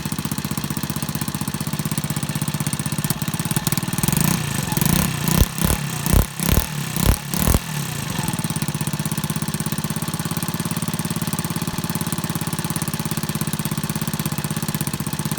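Lexmoto Echo 50cc air-cooled, fuel-injected four-stroke engine idling steadily with a bubbly, pulsing exhaust note, its exhaust opened up by removing a nut and washer from the pipe. About four to eight seconds in, several loud irregular bursts cut across the idle.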